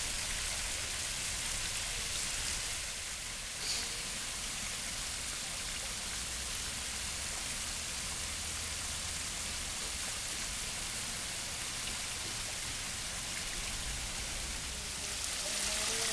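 Steady hiss of splashing, falling water, with one brief knock a few seconds in.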